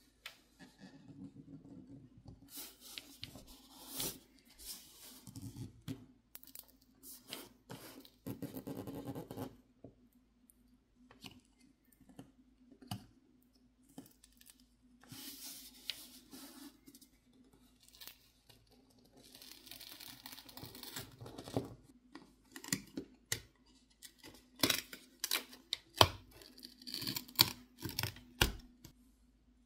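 Adhesive tearing and peeling as a pry tool works the glass outer panels off a Samsung Galaxy Z Flip6, with scraping and many sharp clicks and taps of tools against the phone, more frequent near the end.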